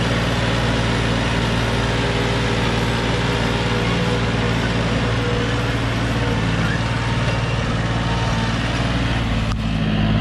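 John Deere 5065E tractor's diesel engine running steadily under load as it pulls a disc harrow through soil.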